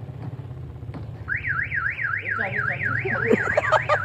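Car alarm siren wailing, its pitch sweeping quickly up and down about four times a second, starting about a second in right after a short click. A steady low hum runs underneath.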